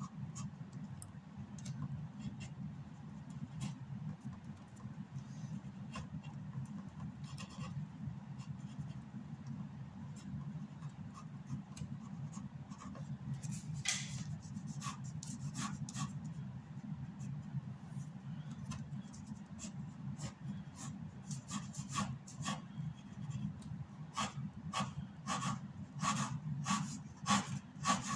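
Ink pen scratching on paper in short hatching strokes: scattered at first, then in quick runs near the end. A steady low hum runs underneath.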